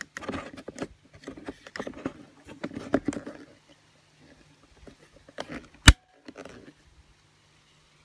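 Parts of a robotic lawn mower being handled during a motor replacement: irregular clattering and rustling for the first few seconds, then one sharp snap about six seconds in, over a faint steady hum.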